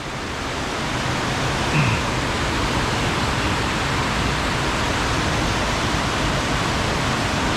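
Steady rush of fast-flowing, storm-swollen water, a loud even roar of current.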